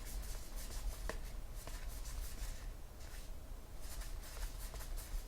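Trading cards being handled and flipped through by hand: faint, scattered rustling and light sliding, over a low steady hum.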